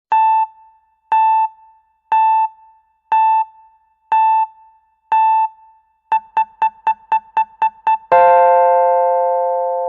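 Electronic countdown beeps, a synthesized transition sound effect: six short keyboard-like beeps about a second apart, then eight quicker beeps, ending about eight seconds in with a long held chord that slowly fades.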